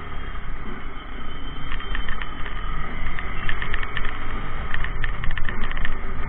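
Yamaha R15 v3 motorcycle on the move in traffic: a steady engine and road rumble with wind on the microphone. From about two seconds in, clusters of sharp rapid clicks cut through it.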